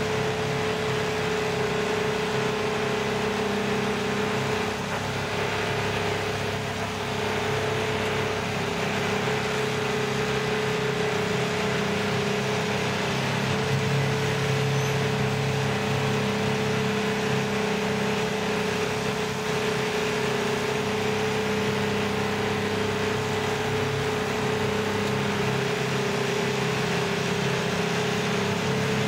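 Vermeer SC352 stump grinder's engine running steadily as the machine is driven and manoeuvred, with a steady hum held over the engine note.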